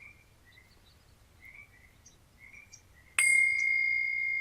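A meditation bell struck once about three seconds in, ringing on in one clear, steady tone that slowly fades; it marks the end of the body-scan meditation. Before the strike, faint repeated chirps of a nature background.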